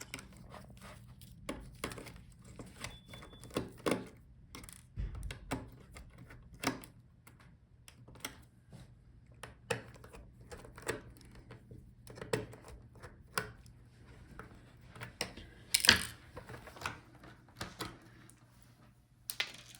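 Scattered small clicks and taps as a laptop's display hinges are taken out: screwdriver, screws and small metal parts handled at a bench, irregularly, with one louder knock about sixteen seconds in.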